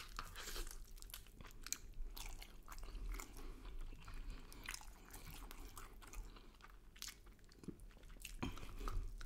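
A person chewing tender cooked lamb close to the microphone, with small irregular mouth clicks.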